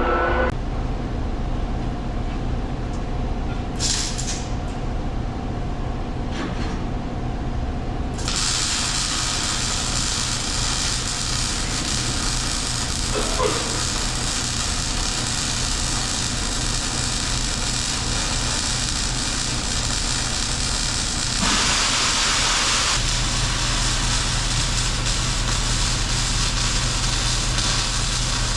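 Steady mechanical running noise: a low hum with a hiss. The hiss grows much brighter about eight seconds in, and the sound swells briefly near the twenty-two second mark.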